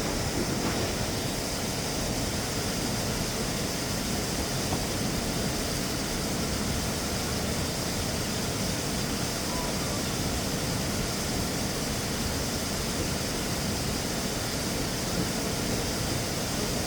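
Steady rushing noise at an even level, with no tone or distinct knocks in it.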